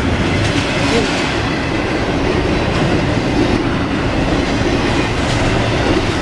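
Double-stack container well cars of a freight intermodal train rolling past close by, their steel wheels running steadily on the rails.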